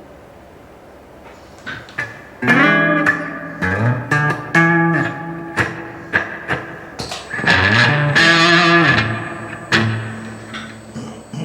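Gibson Les Paul electric guitar played through an Electro-Harmonix Oceans 11 reverb pedal into a Roland Blues Cube amp. A few soft plucked notes lead into loud chords, some with notes bending up in pitch, and the last chord rings out with a long reverb tail near the end.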